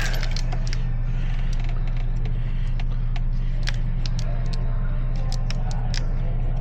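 A steady low machine hum with scattered light clicks and taps, as of small parts being handled.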